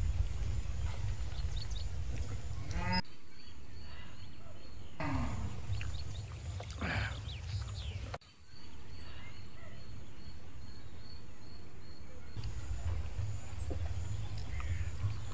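Outdoor ambience with wind rumbling on the microphone, broken off abruptly twice. For a stretch in the middle, a steady high tone runs along with a few animal calls that glide down and up in pitch.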